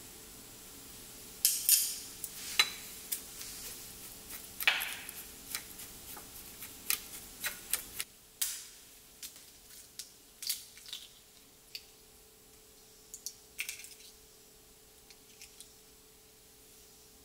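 Wooden spoons scooping dry baking ingredients into a green glass mixing bowl and tapping against it, followed about halfway through by a wire whisk stirring the dry mix, with irregular clicks and short scrapes on the glass.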